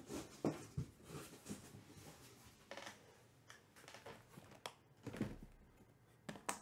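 Cardboard trading-card hobby boxes being handled and stacked on a table: a scatter of soft knocks, taps and brief scrapes, the sharpest about half a second in and again near the end.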